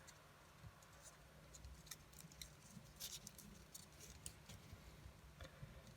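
Faint rustling and crinkling of a sheet of origami paper being folded and creased by hand, with a few soft scattered ticks over a low hum.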